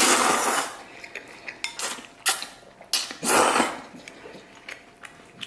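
A person slurping oil-splashed noodles (youpo mian) off chopsticks in two loud noisy rushes, one at the start and another about three seconds later. Between them come chewing and small sharp clicks of chopsticks against the bowl.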